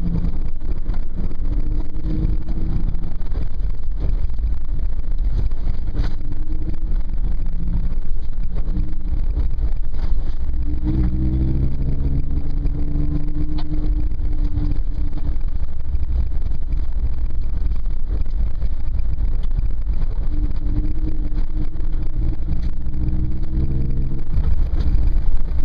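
Toyota FJ Cruiser's 4.0-litre V6 and drivetrain heard from inside the cabin on a dirt trail: a steady low rumble, with the engine pitch rising about eleven seconds in and again near the end. A few sharp knocks come through.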